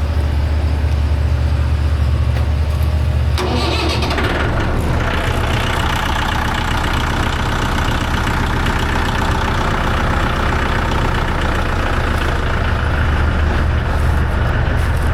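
An engine starts about three and a half seconds in and settles into a steady idle, over a low engine rumble that is already running.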